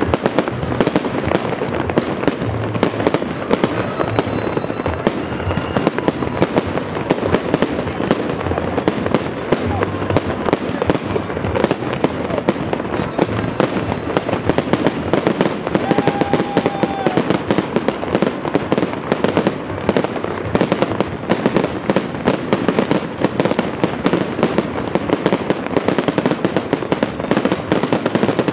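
Fireworks exploding in a dense, unbroken barrage: many sharp bangs and crackles every second, with no pause.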